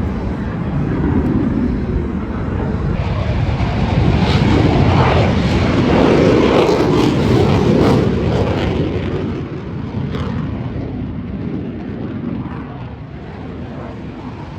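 Aircraft engine noise swelling as an aircraft passes, loudest in the middle, then falling away about two-thirds of the way through.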